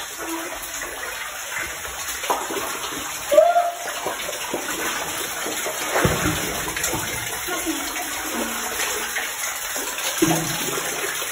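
Steady rush of running water, with a brief sharp sound about three seconds in and a few short faint pitched sounds.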